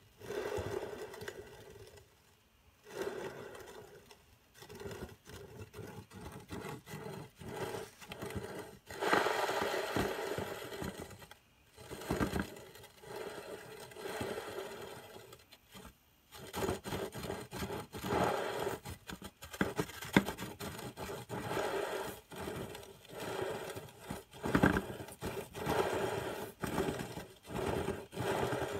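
A failing front output shaft bearing in a GM NP246 transfer case grinding as the output shaft is spun by hand, in repeated spells of a second or two with short pauses between.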